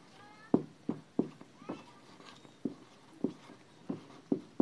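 Dry-erase marker writing on a whiteboard: a run of short, sharp strokes about two a second, with a brief pitched squeak of the tip near the start and again about a second and a half in.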